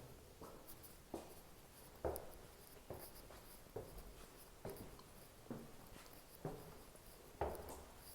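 Faint footsteps at an even walking pace, about one step a second.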